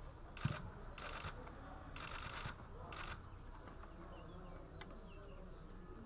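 Cicadas buzzing in short bursts, four of them in the first three seconds and the longest about half a second, then fading back to a faint background. A single dull thump comes about half a second in.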